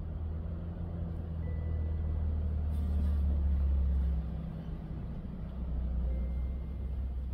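Low, steady rumble of a motor vehicle engine running, swelling to its loudest about three to four seconds in and easing off just after.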